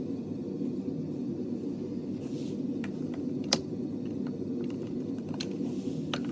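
A steady low hum with a few light clicks and taps from handling an object close to the microphone; the sharpest click comes about three and a half seconds in.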